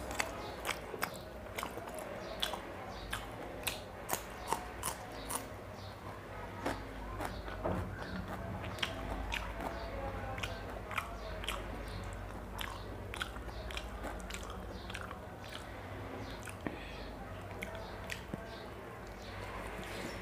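Close-up mouth sounds of a man eating fried eggs by hand: chewing with many sharp wet clicks and smacks, packed closely for the first few seconds and sparser after.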